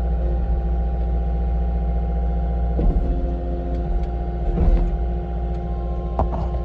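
Skid steer engine running steadily under a low rumble, with a few short knocks.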